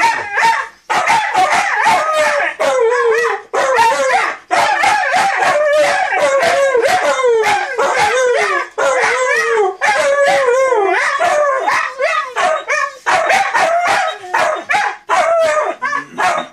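Two Siberian huskies howling and yowling back and forth in the breed's 'talking' manner: a loud, near-continuous run of wavering calls that bend up and down in pitch, broken by short gaps.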